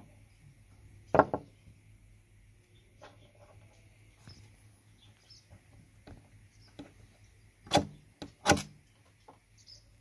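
Spine of a Fallkniven F1 knife scraped hard down a Light My Fire ferrocerium firesteel twice, about a second apart near the end, throwing sparks that light a pile of resin-rich fatwood shavings. Earlier there is a sharp knock about a second in, then light clicks and scrapes as the knife and firesteel are handled over the wooden table.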